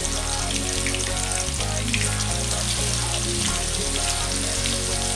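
Marinated chicken pieces deep-frying in hot oil in a black iron pan, a steady sizzle with dense crackling of bubbling oil. Background music with a steady bass line plays under it.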